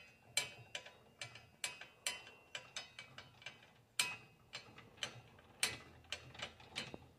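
Arbor nut being twisted off a Ryobi 10-inch table saw's arbor by hand: a quiet, irregular run of sharp metallic clicks, some with a brief ring.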